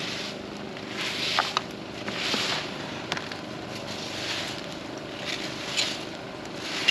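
A rake scraping through leaves and sticks, in repeated swishing strokes about once a second. A few sharp crackles of the wood fire are heard between strokes.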